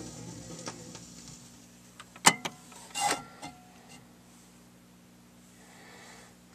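A record player at the end of a 45 rpm single: the last notes of the song die away, then a sharp click and a few knocks come about two to three seconds in, and a low steady hum is left under them.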